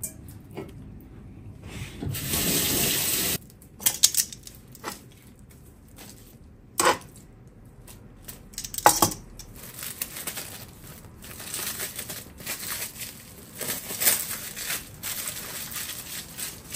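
Plastic cling wrap pulled off its roll in one steady rasp of about a second and a half, then several sharp clicks and a run of crinkling as pieces of chicken are wrapped in it.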